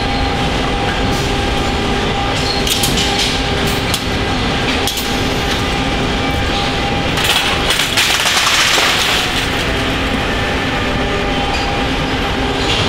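Car assembly line ambience: a steady machinery hum with scattered clicks and clatters of tools and parts. A louder hiss rises for a second or two around the middle.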